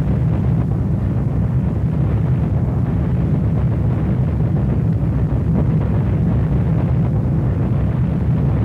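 Steady deep rumble of aerial bombs exploding on a city, with no single blast standing out.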